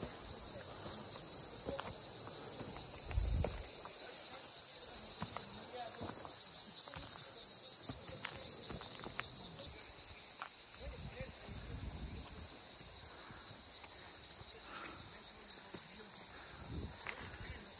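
Insects chirring steadily at a high pitch, with scattered footstep sounds and a low bump about three seconds in.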